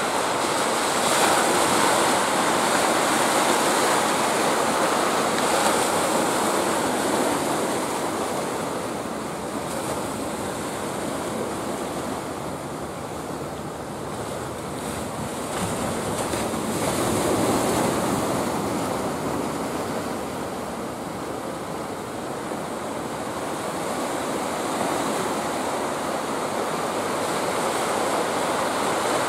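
Ocean surf breaking and washing onto the shore. The noise swells and eases in slow surges, loudest a couple of seconds in and again past the middle.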